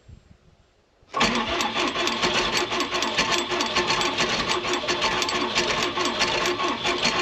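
Gear-reduction starter cranking a cold John Deere diesel engine. It kicks in about a second in and turns the engine over fast and evenly, with no sign of it firing, as is typical of a cold diesel with no grid heater or starting aid.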